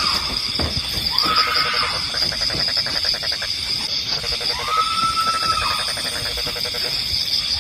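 An unidentified animal calling repeatedly, about every three to four seconds: each call is a drawn-out cry that rises and falls, with a buzzing, rattling part. A steady high-pitched drone runs underneath.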